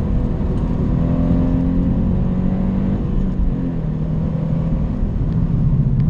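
Car engine and road rumble heard from inside the cabin while driving at speed on a track. The engine note climbs slightly, drops a little about halfway through, then holds steady.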